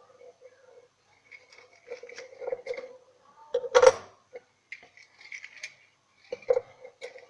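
Metal wire being handled and cut: light metallic clicks and rustles, with one sharp loud snap about four seconds in and another click near the end.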